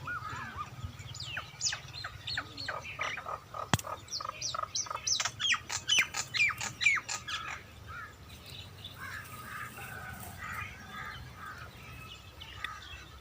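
Birds calling: a quick run of sharp, falling chirps that speeds up and gets louder over the first several seconds, then softer twittering, over a low steady background rumble.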